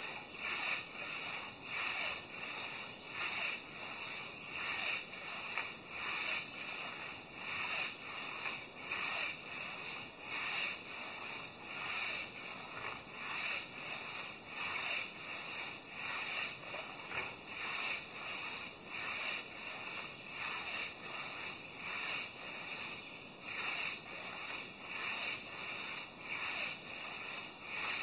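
Hand saw cutting through a maple log, the rasping strokes going on at an even pace of about one a second.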